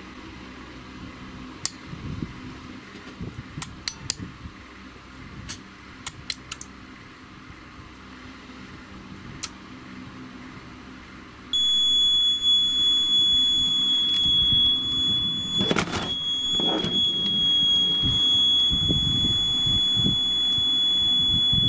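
Light clicks and taps, then a steady high-pitched electronic beep from the Seaward Europa Plus PAT tester's buzzer that starts about halfway through and holds unbroken for about ten seconds as the tester is switched on and starts up, with a couple of knocks during it.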